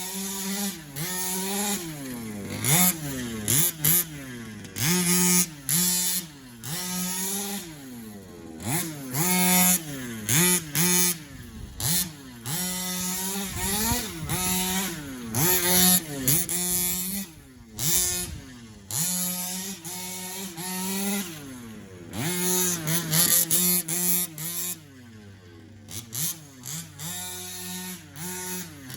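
HPI Baja 5B SS's small two-stroke gasoline engine revved in repeated short blips that rise and fall in pitch, settling back to idle between them, as its rebuilt carburettor is tested. The blips thin out near the end, leaving a quieter idle.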